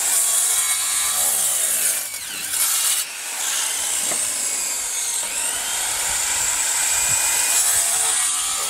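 Handheld electric woodworking tool running along a wooden board, a steady high hiss of cutting with brief dips about two and three seconds in as the tool eases off.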